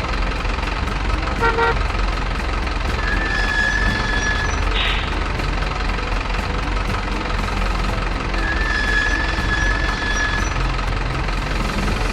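Miniature RC truck running with a steady mechanical drone, and two long horn toots, one about three seconds in and one about eight seconds in.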